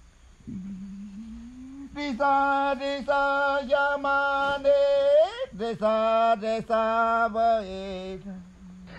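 Chanting voice singing held, repeated syllables over a low steady drone; the voice comes in about two seconds in and sweeps upward in pitch about five seconds in.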